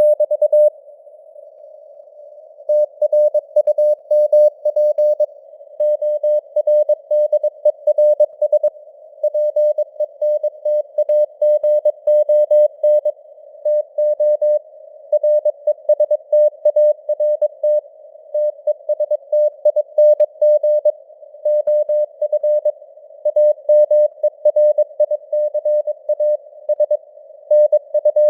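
Morse code (CW) sent at 22 words per minute as a single tone of about 600 Hz keyed on and off, over a faint hiss of simulated radio noise, its strength slightly fading and returning (QSB). About a second in, the keying pauses for roughly two seconds, then runs on steadily.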